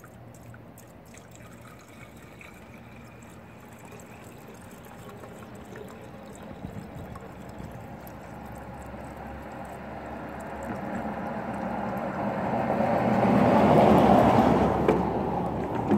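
Water being poured into a car radiator, the pouring growing steadily louder and then easing off near the end.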